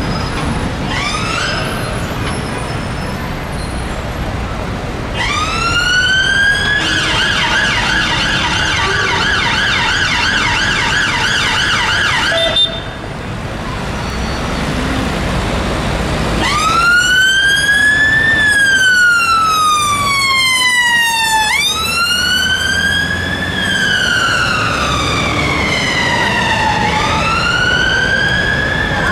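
Whelen Alpha electronic siren on a Mercedes-Benz Atego fire truck: a wail rising into a fast yelp that cuts off abruptly about halfway through, then after a short pause a slow wail rising and falling in pitch, over city traffic noise.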